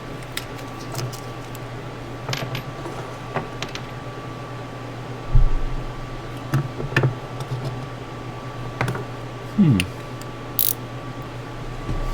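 Scattered light clicks and taps of small parts and tools being moved about on a workbench while searching for a dropped screw, with a dull thump about five seconds in, over a steady hum.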